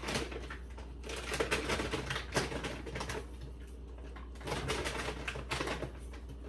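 Dry jasmine rice being scooped with a measuring cup and poured into a pot of boiling beans: an irregular grainy rattle, with a steady low hum underneath.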